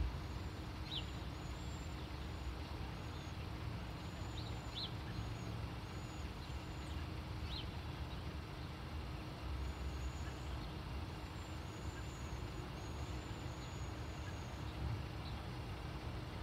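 Birds giving many short, very high, thin calls through much of the stretch, with a few lower single chirps, over a low steady background rumble.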